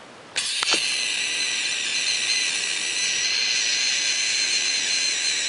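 A loud, steady, high-pitched hiss with a faint whistling edge, starting suddenly about half a second in and running unbroken for nearly six seconds.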